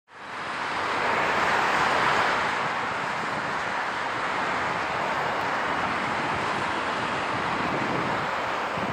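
Jet engine noise from a Boeing 757-300 airliner on final approach, gear down: a steady rushing roar that fades in at the start and is loudest about two seconds in.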